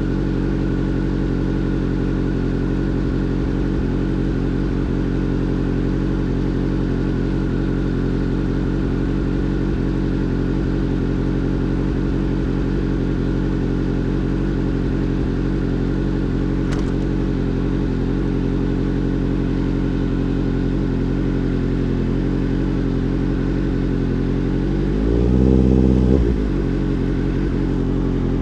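Motorcycle engine running steadily, then briefly revved up and let back down near the end.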